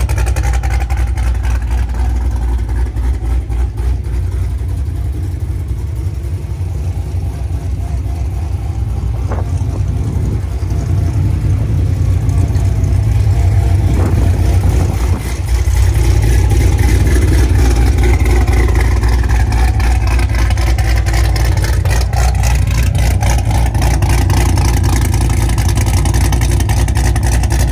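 2021 Yenko Stage 2 Camaro's supercharged V8 running at idle through its quad exhaust tips, a steady deep rumble that grows a little louder about halfway through.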